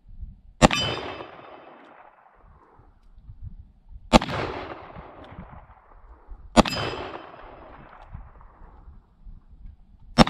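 Smith & Wesson Model 29 .44 Magnum revolver with an 8 3/8-inch barrel firing four shots, spaced about two and a half to three and a half seconds apart, with the last right at the end. Each shot is followed by a long echo that fades over a second or so.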